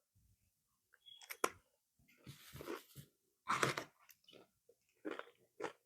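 Irregular rustling, crinkling and light knocks of produce and packaging being handled and put away, in short scattered bursts.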